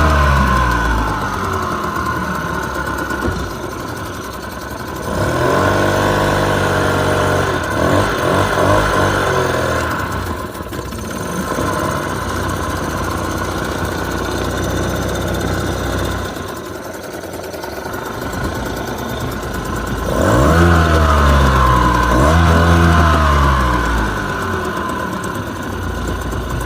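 Tohatsu 3.5 hp outboard motor running, idling steadily and twice being throttled up and eased back down.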